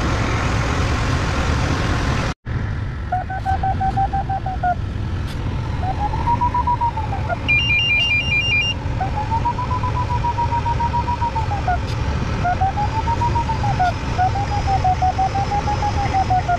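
Glider cockpit: steady rush of airflow over the canopy, with the variometer's audio tone rising and falling in pitch in repeated arcs, sometimes chopped into quick beeps. A short run of higher beeps sounds about eight seconds in, and the sound drops out for an instant just after two seconds.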